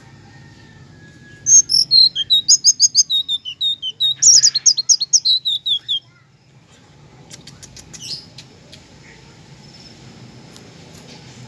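A songbird singing two quick runs of high chirps, each run stepping down in pitch, then stopping; a few faint ticks follow.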